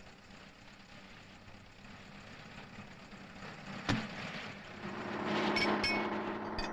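An autorickshaw's small engine running, swelling louder from about five seconds in. A single sharp knock comes just before.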